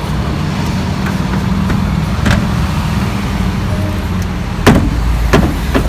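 A vehicle engine idling with a steady low rumble. Near the end come a few sharp knocks, the first the loudest.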